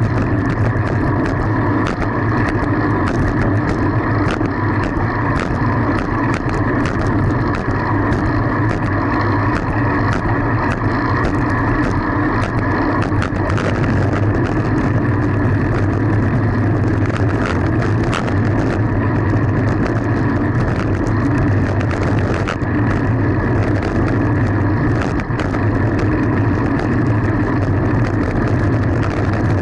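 Steady loud road and wind noise from a moving fixed-gear bicycle ride, peppered with frequent small clicks and rattles.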